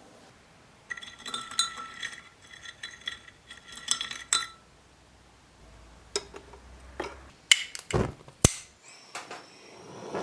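Sterling silver chain links clinking against each other with a bright ringing jingle as the bracelet is handled, followed later by a few sharp separate knocks and clicks.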